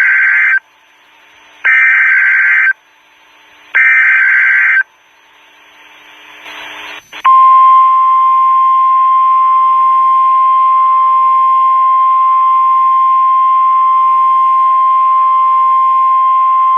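NOAA Weather Radio Emergency Alert System activation: three bursts of SAME header data, harsh digital warbling about a second long each and two seconds apart, with radio hiss rising between them. About seven seconds in, the steady 1050 Hz NOAA weather alert tone comes on and holds, signalling that a warning broadcast follows.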